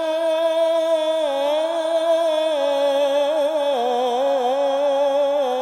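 A man's voice reciting the Quran in melodic tarannum style, holding one long ornamented note that wavers and steps down in pitch twice. The melody is one the host guesses to be maqam Nahawand.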